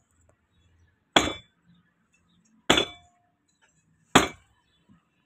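Three heavy hammer blows on the steel steering shaft of an auto-rickshaw's front fork, laid across an iron block, about a second and a half apart. Each blow is a sharp metallic clang with a brief ring.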